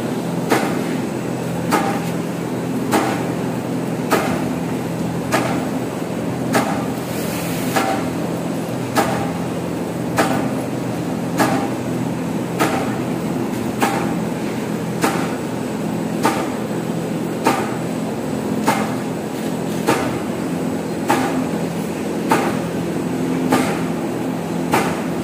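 Buffet sheet making machine running: a steady motor and drive hum with a sharp knock repeating evenly about every 1.2 seconds. There is a brief hiss about seven seconds in.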